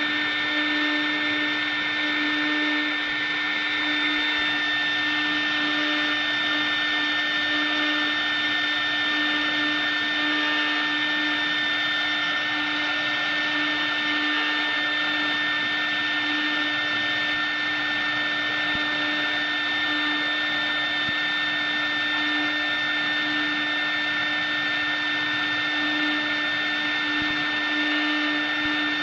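W1325CR CNC router spindle running steadily with a high whine as its bit carves a wooden cylinder turning on the rotary axis, a lower hum wavering slightly underneath.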